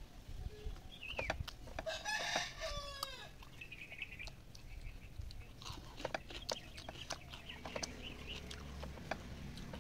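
A rooster crows once about two seconds in, a call of about a second that bends down at the end. Around it come scattered soft clicks and smacks of someone eating rice and curry by hand.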